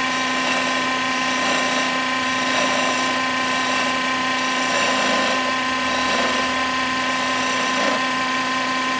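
A homemade wood-turning lathe running steadily, its motor giving a constant hum and whine with a hiss over it.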